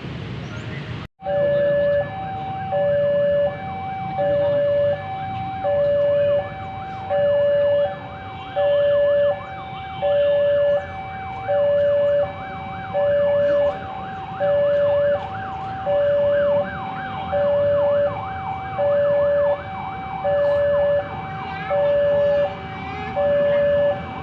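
Electronic two-tone warning alarm, typical of an Indonesian railway level crossing, alternating between a louder low tone and a higher tone about once a second without a break. It starts just after a brief dropout about a second in.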